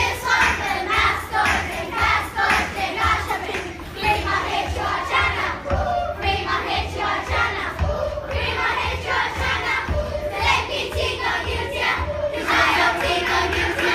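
Large group of children singing and shouting together over music with a steady beat.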